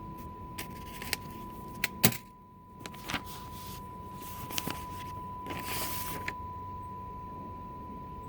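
A steady high-pitched test tone over a low hiss, broken by scattered light clicks and knocks of hands and tools on the bench equipment, the sharpest about two seconds in, and a brief rustle near six seconds.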